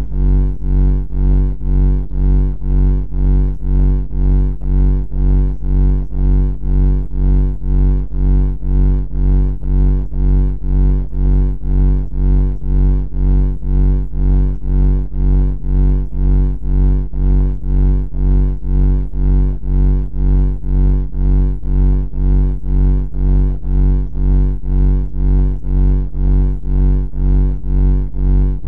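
Loud, low buzzing drone that throbs evenly about twice a second.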